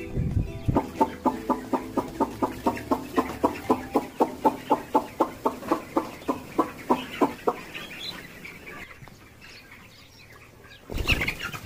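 Chicken clucking in a rapid, even run of short clucks, about four a second, that stops a little past the middle, leaving a few faint chirps; a louder sound comes in just before the end.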